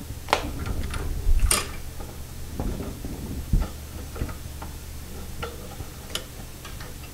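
A few scattered light clicks and taps of a metal pop-up sink drain's parts being handled and fitted by hand, the sharpest about a second and a half in.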